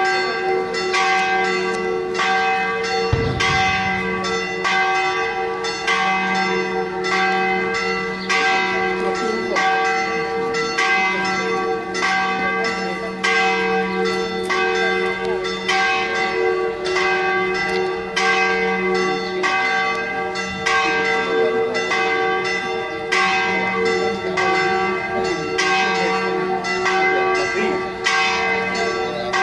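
Church bells ringing continuously in a fast, steady run of strokes, the tones of several bells hanging on and overlapping.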